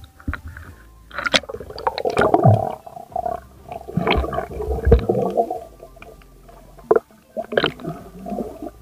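Muffled sounds of water around an action camera as it goes under the sea and is moved about: churning water and gurgling bubbles in uneven bursts, with a few sharp knocks.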